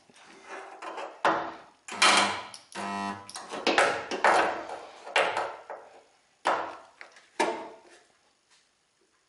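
Copper electrode arms of a contact spot welder knocking and clunking against the car's sheet-metal front panel as they are positioned and clamped for a weld. The knocks come in a quick irregular series and thin out over the last couple of seconds.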